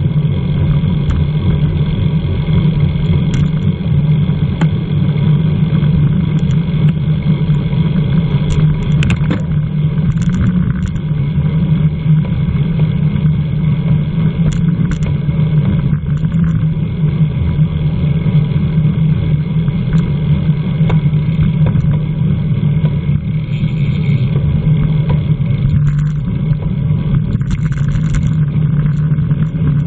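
Steady rushing wind noise buffeting the microphone of a camera on a racing bicycle at speed, a constant low rumble with a few faint ticks.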